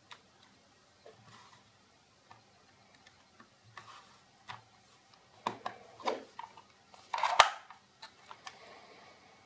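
A small plastic IP camera and its folding stand being handled: scattered light clicks and knocks, with one sharp, louder snap a little after seven seconds in.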